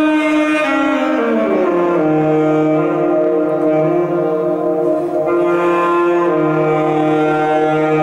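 Alto saxophone playing long held notes, with several pitches sounding together. About a second in, a tone slides down in pitch and settles on a steady low held note.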